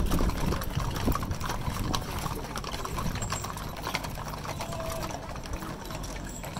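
Hooves of several horses walking on a paved street, clip-clopping in many overlapping, irregular clicks.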